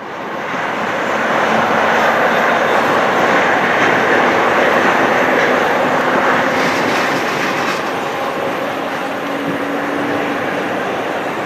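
Embraer 195 jet airliner's CF34 turbofan engines running at taxi power: a steady jet roar with a faint whine in it. The sound fades in at the start and eases slightly in the second half.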